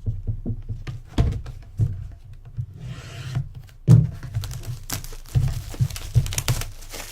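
A cardboard trading-card box handled on a table: irregular thunks and rubbing, with a short crinkly rustle about three seconds in.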